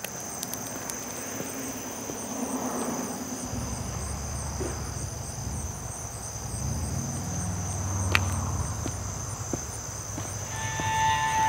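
Crickets trilling steadily at a high pitch, with a fine pulsing chirr above the main tone. A low rumble joins about three and a half seconds in, and soft music fades in near the end.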